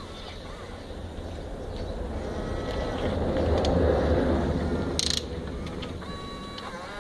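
Huina 1550 RC toy excavator's small electric motors and plastic gears running, growing louder toward the middle and then easing off, with a sharp click about five seconds in.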